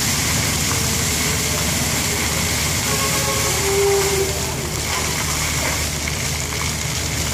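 Fountain water jets splashing and spraying steadily, with a steady low rumble beneath.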